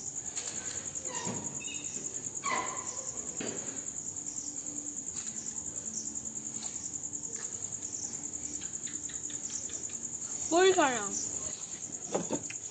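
Crickets chirping in a steady, high-pitched, rapidly pulsing trill. About ten and a half seconds in comes one brief, louder voice-like call with a bending pitch.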